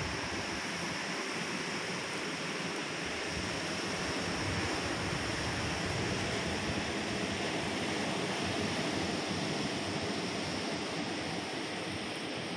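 Steady rushing of surf breaking along a coral reef, swelling and easing slightly.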